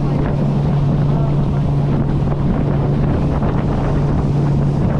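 Outboard motor of a Stabicraft 1450 aluminium boat running at a steady pitch while underway, with wind buffeting the microphone.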